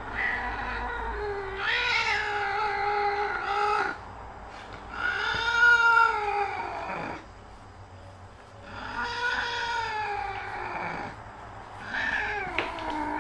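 A domestic cat giving a series of about four long, drawn-out meows, each lasting around two seconds with short pauses between; the loudest call, in the middle, drops in pitch at its end.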